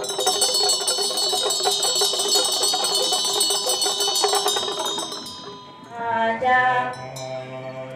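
Small ritual metal percussion rung in a fast, dense roll, bright ringing hanging over the strokes, for about five seconds before it fades away. Near the end a chanting voice slides in and holds steady notes.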